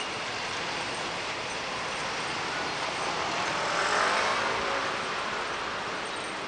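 A car passing by on the road, its noise swelling to a peak about four seconds in and then fading, over a steady hiss.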